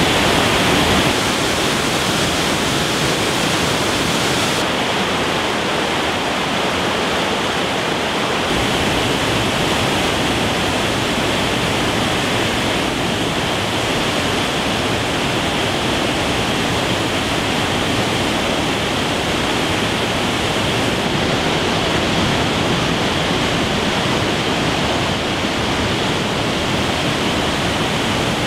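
Waterfall plunging into a rocky canyon pool: a loud, steady rushing of falling water whose tone shifts slightly a few times.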